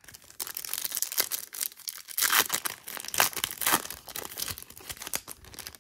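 Foil wrapper of a baseball trading-card pack being torn open and crinkled by hand: a dense crackling, loudest about halfway through.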